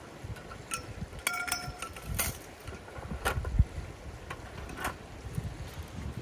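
Wind buffeting the microphone in gusts, with a few light clicks and knocks and a short ringing clink about a second and a half in.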